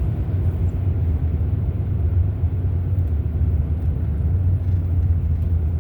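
Steady low rumble of a car driving, heard from inside the cabin: engine and road noise with no sudden events.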